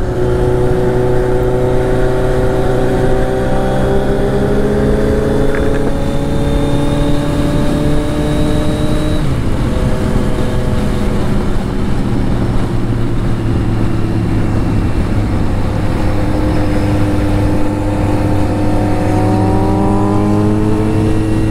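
Kawasaki Z900's inline-four engine running under way, its exhaust fitted with a dB killer baffle, over a steady rushing noise. The engine note climbs slowly for the first nine seconds, drops around nine seconds, holds steady, and climbs again near the end.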